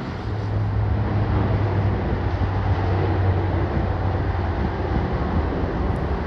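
Jet airliner engines heard as a steady low rumble with a low hum, mixed with wind on the microphone.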